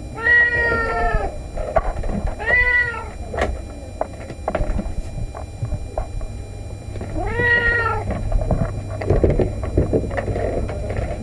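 Domestic cat meowing three times, each meow an arched call rising and falling in pitch, the first the longest; begging meows.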